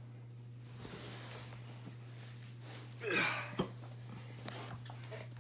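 A person's short breathy vocal sound, falling in pitch, about three seconds in, followed by a sharp click, over a steady low hum.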